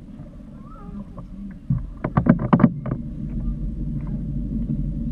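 A small boat's motor running with a steady low drone, which gets louder a little under two seconds in. Just after that comes a quick run of five or six sharp knocks.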